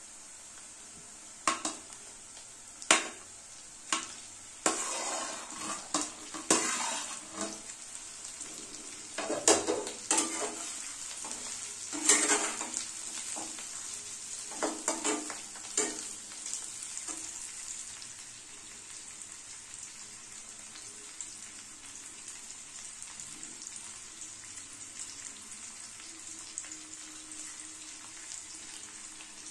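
Chicken liver and onions frying in a steel kadai with a steady sizzle. Over the first half, steel utensils knock and scrape against the pan as the food is tipped in and stirred. After that only the sizzle goes on.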